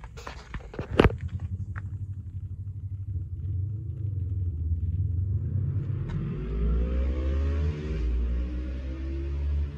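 GMC Savana box truck engine running, with a sharp knock about a second in. About six seconds in the engine's pitch rises and it grows louder, and an even hiss comes in with it.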